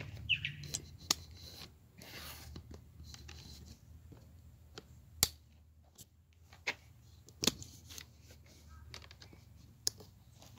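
Handling noise from a phone being set down close to its microphone: scattered sharp knocks and taps, the loudest about five seconds in, with scraping and rustling between them.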